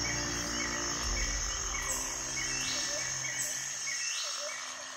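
A nature soundscape: a steady high insect trill, like crickets, and a short chirping call repeating two or three times a second, over low held tones. It fades out near the end.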